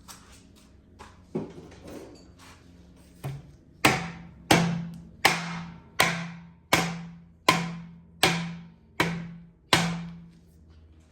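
Soft-faced hammer striking the end of a GM 9.5-inch rear axle shaft to drive it inward toward the C-clip: a couple of light taps, then eight hard blows at an even pace, each ringing briefly through the axle housing.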